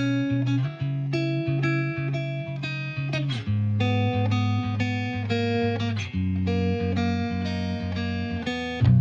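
Background music led by plucked guitar, playing a melody over a steady bass line, growing louder near the end.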